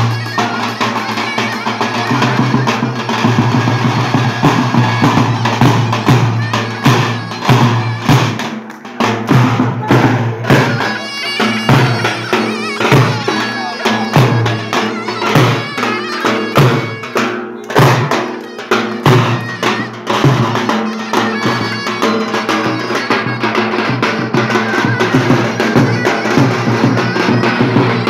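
Live Turkish folk dance music: a davul, a large double-headed bass drum, beaten in a steady rhythm under a shrill reed pipe carrying the melody. The drum strokes stand out more sharply after the first third.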